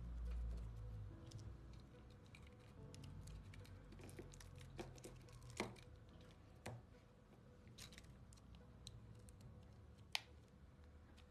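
Faint, scattered clicks and taps of small phone parts being handled: flex-cable connectors pressed into place on the open Galaxy Note 20 Ultra's circuit board, with the sharpest click near the end, over a low background hum.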